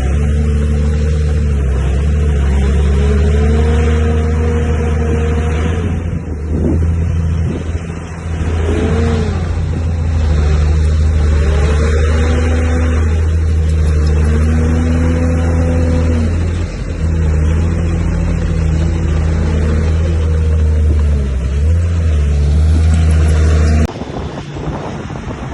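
Komatsu D31P bulldozer's diesel engine working under load, with a whine that repeatedly rises and falls as the machine pushes. The engine sound cuts off abruptly a second or so before the end, leaving quieter noise.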